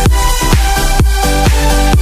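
Electronic dance music with a steady four-on-the-floor kick drum, about two beats a second, and synth chords.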